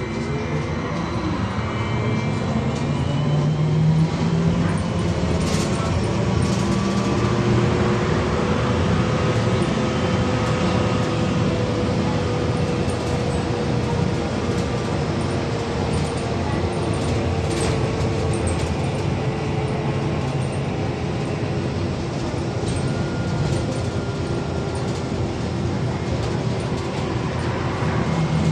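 Inside a VMZ-5298.01 trolleybus under way: the electric traction drive whines over a steady rumble of tyres and road. The whine climbs in pitch at the start as the trolleybus gathers speed, then slowly rises and falls again, with a few sharp rattles from the body.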